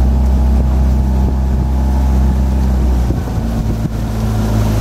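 Outboard motor of a coaching launch running steadily while keeping pace with a rowing boat, its low note shifting slightly about three seconds in.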